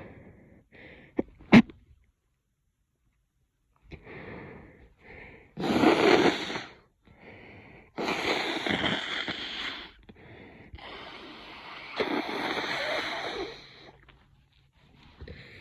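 A person with a head cold sneezes once, loud and short, then blows her nose twice in two long blows of about two seconds each.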